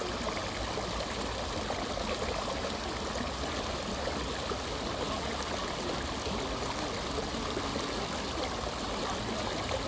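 Steady rush and trickle of running water, with no separate splashes standing out.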